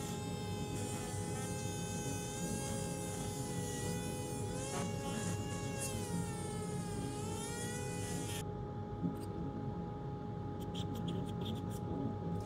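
High-speed rotary carving tool grinding out the lead-weight hole in a wooden fish decoy, its whine wavering in pitch as the bit bites into the wood. The tool stops suddenly about eight and a half seconds in, and a few light clicks follow near the end.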